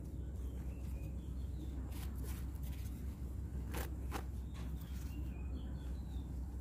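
Potting soil rustling and crunching as gloved hands press lemongrass stalks into a pot, in a few short scrapes about two and four seconds in, over a steady low rumble.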